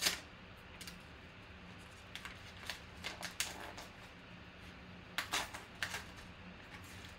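Yellow paper envelope being torn open and crumpled by hand: irregular dry crinkles and rips, sharpest right at the start and again about five seconds in.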